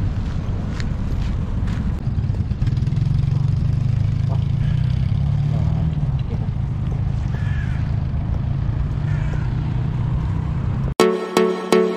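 Street ambience dominated by a heavy, uneven low rumble of wind buffeting the microphone, with road traffic in the background. About a second before the end it cuts off suddenly and electronic music with a steady beat begins.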